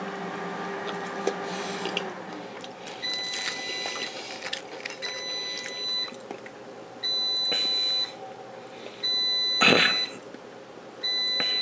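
Air fryer beeping its end-of-cooking alert: a high, steady beep about a second long, repeated every two seconds, five times. The last three beeps are louder.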